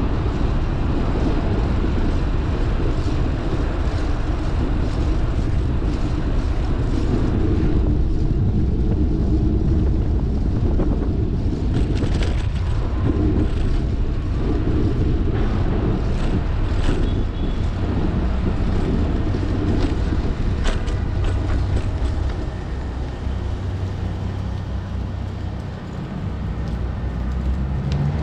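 Wind rushing over a bike-mounted action camera's microphone and road rumble from a bicycle riding along city streets, with traffic around it. A few sharp clicks and rattles come around the middle.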